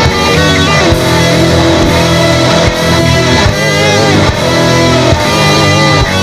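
Instrumental rock music: loud distorted electric guitars with a wavering, bending lead line over a steady beat.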